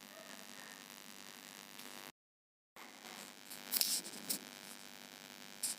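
Sellotape being peeled off a gift hamper's wrapping: a few short scratchy rustles about four seconds in and again near the end, over a faint steady hiss, with a brief complete cut-out to silence about two seconds in.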